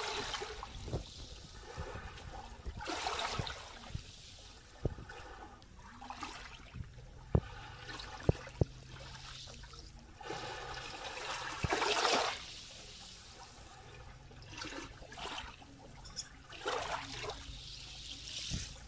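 Small waves rippling in and washing over wet sand in shallow water, in soft swells every few seconds. There are a few sharp clicks around the middle.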